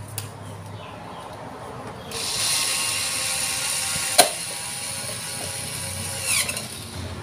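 Cordless electric screwdriver starting about two seconds in and running steadily as it drives a bolt into a children's tricycle frame. There is one sharp click about four seconds in and a brief falling whine about six seconds in.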